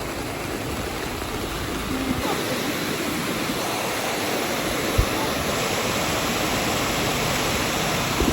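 Steady rain falling, an even hiss that grows a little louder about two seconds in. A single dull thump about five seconds in.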